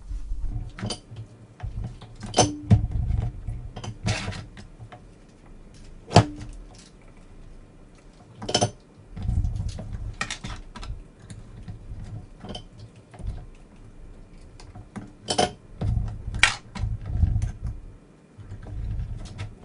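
Soldering tools and small Deans connectors being handled on a workbench: scattered sharp clicks and light taps at an uneven pace, a few with a short ring after them, over low handling bumps.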